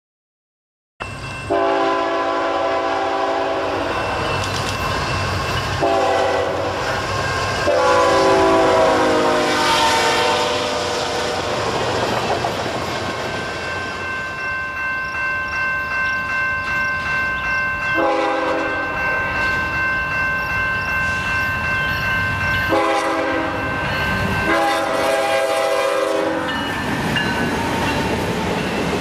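Diesel locomotive's multi-chime air horn blowing a series of long and short blasts for a grade crossing, three in the first ten seconds and three more near the end. Between the blasts the train rolls through at speed, its wheels clicking over the rail joints about twice a second.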